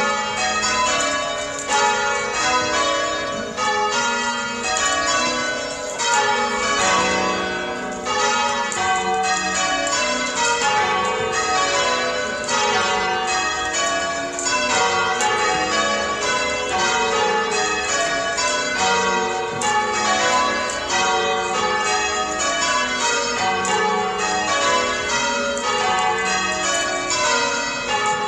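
A ring of church bells in change ringing: a continuous, evenly paced run of strikes, the bells sounding one after another as the ringers pull the ropes.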